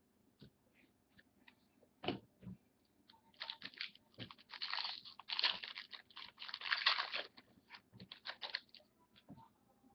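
Trading-card packaging crinkling as cards are handled: a few light taps and clicks, then about five seconds of dense crinkling from roughly three seconds in until near the end.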